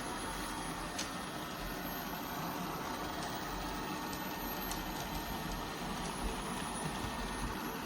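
ILIFE A12 Pro robot vacuum running with a steady whirr, a faint high whine slowly rising and falling over it.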